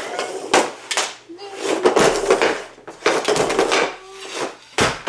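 Hockey stick blade clacking against a hard dryland training puck on plastic dryland flooring tiles, a run of sharp, irregular knocks from stickhandling and shooting, with the puck scraping and clattering across the tiles.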